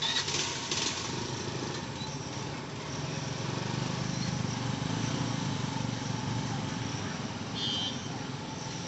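A group of small motorcycle and scooter engines idling and then pulling away together, the engine noise building from about three seconds in.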